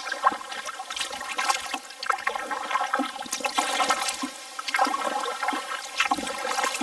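Kayak paddle strokes: water splashing and trickling off the paddle blades, in surges about every second and a half.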